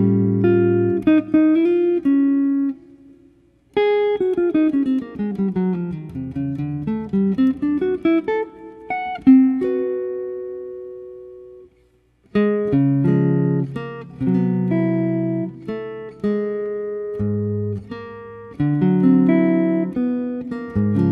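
Solo guitar music, plucked notes and chords that ring and fade, breaking off briefly twice, about three seconds in and about twelve seconds in.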